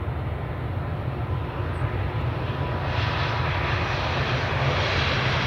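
Jet engines of an Airbus A320-family airliner running as it rolls along the runway: a steady low rumble, joined about three seconds in by a swelling hiss as the sound grows louder.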